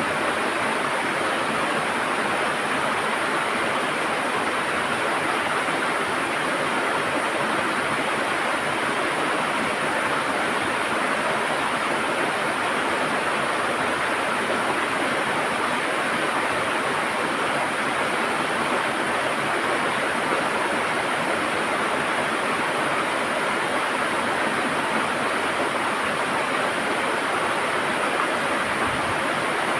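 River water gurgling and rushing over stones, a steady even rush with no pauses.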